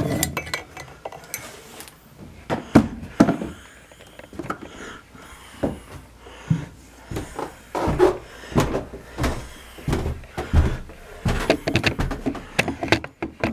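Knocks and clatter of a plastic water bucket being picked up and carried, with handling noises. In the second half comes a run of dull thumps about every half second to second.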